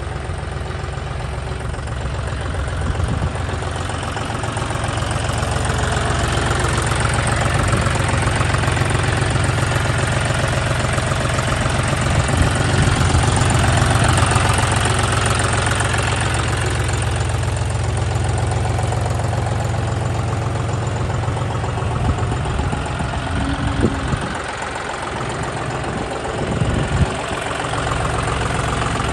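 John Deere 5050D tractor's three-cylinder diesel engine running steadily at idle, heard close to the engine bay, with a brief dip and a few knocks near the end.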